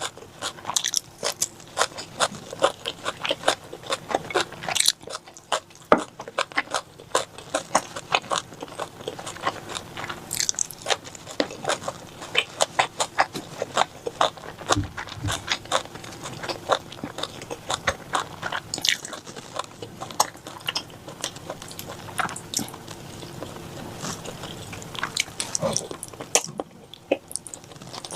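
Close-up chewing and biting of spicy pork, a dense run of irregular wet, crunchy mouth clicks.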